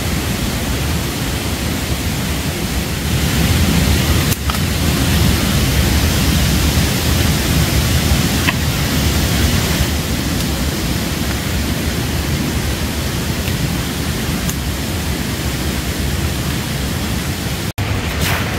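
Waterfall rushing in a steady, loud roar of falling water, cutting out for an instant near the end.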